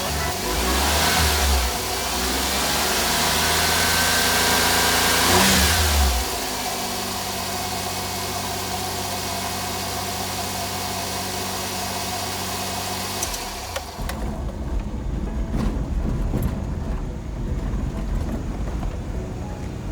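Suzuki Carry's K6A three-cylinder turbo engine running: revved a few times for about six seconds, then settling into a steady even note. About two-thirds of the way in, the engine note gives way to a low, uneven rumble.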